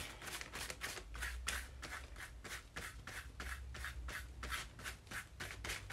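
Paintbrush strokes spreading a thick layer of wet glue over paper, a brushing sound repeating about three times a second.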